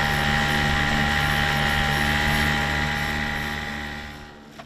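Boat motor running steadily, a low hum with a constant whine on top, fading away about four seconds in.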